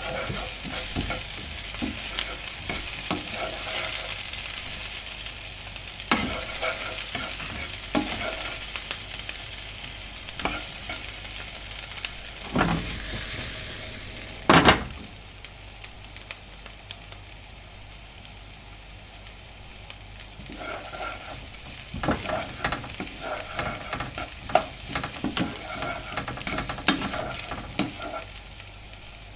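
Food sizzling in a frying pan while a utensil stirs it, clicking and scraping against the pan. The sizzle is loudest at first and eases off. There is one sharp knock about halfway through, and a run of quicker taps and scrapes comes near the end.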